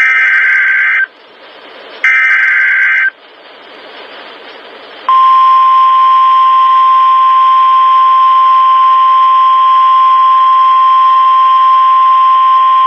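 NOAA Weather Radio Emergency Alert System signal: two of the three SAME header data bursts, each a second-long screech of rapidly switching digital tones about a second apart, with radio hiss between. About five seconds in, the steady single-pitch 1050 Hz warning alarm tone begins and holds, announcing a new warning.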